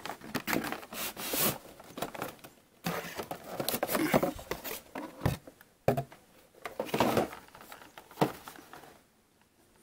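Cardboard shipper box rustling and scraping as a blister-carded action figure is slid out of it and handled, the plastic bubble crinkling, in irregular bursts with a few sharp clicks. It goes quiet near the end.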